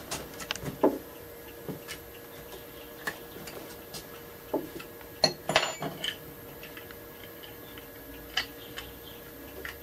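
Light clicks and clinks of small metal hand tools and hardware being picked up and handled, scattered irregularly with a busier clatter a little past the middle.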